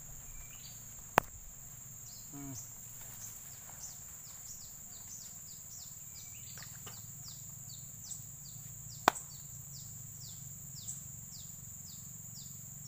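Riverbank ambience: a steady high drone and a run of short, falling chirps repeating a little under two a second. Two sharp knocks stand out, about eight seconds apart.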